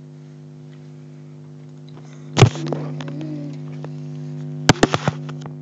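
A steady low electrical hum, with one loud knock about two and a half seconds in and a quick run of four or five sharp clicks near the end, like something being handled or set down.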